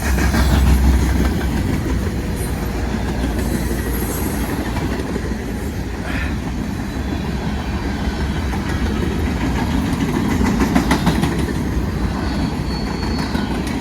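Freight train cars rolling past with a steady rumble, their steel wheels clacking over the rail joints.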